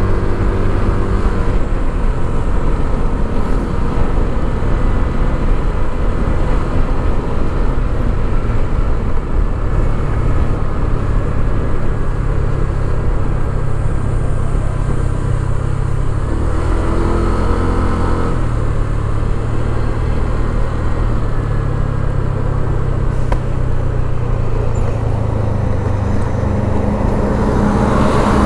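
Motor scooter's engine running at a steady cruising speed with road noise; about two-thirds through, the engine note drops for a couple of seconds and then picks up again.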